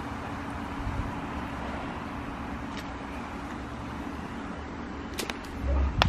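Steady outdoor ambience: a constant low hum with hiss. A few sharp clicks come late on, and a low bump on the microphone just before the end as the camera swings.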